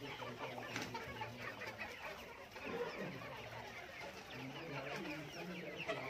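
A flock of Australorp hens clucking, many short calls overlapping continuously, with a few longer, lower drawn-out calls among them.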